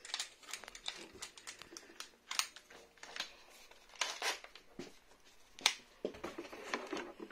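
Irregular small clicks, taps and scraping of a screw with a washer being fitted and driven into the plastic body mount of a Traxxas X-Maxx's unbreakable body. The handling is fiddly because the mount sits right behind the roll bar.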